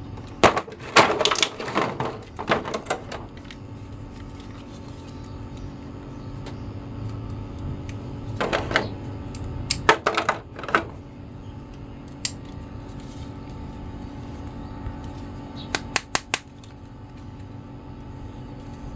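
Clear plastic packaging and plastic action figures being handled: clusters of short clicks and crinkles in the first three seconds, again around the middle, and briefly near the end, over a steady low hum.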